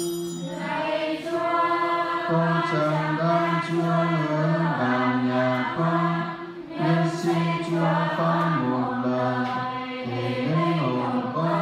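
Church choir singing a hymn, with notes held for a second or two and the melody moving in steps.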